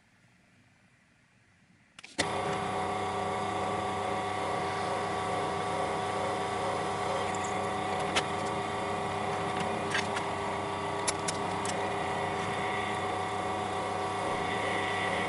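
Benchtop drill press starting about two seconds in, its motor then running with a steady hum, with a few light clicks near the middle.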